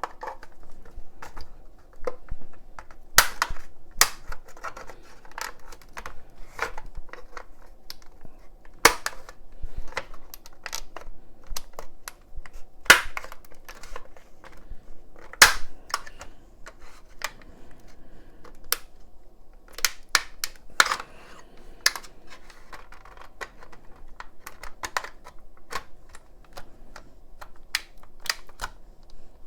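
Tool and plastic clicks as a PS5 power supply's casing is worked open: a steady run of small clicks and taps, with a handful of louder sharp snaps spaced several seconds apart.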